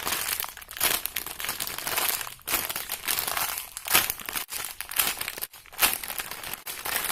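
Plastic packaging crinkling and rustling with many small crackles as a squishy toy in its wrapper is handled.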